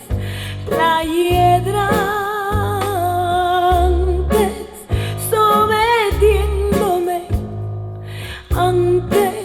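A Spanish-language song playing back on a Linn hi-fi system (Kolektor preamp, LK140 power amplifier, Ninka speakers): a singer holding long notes with vibrato over deep, sustained bass notes.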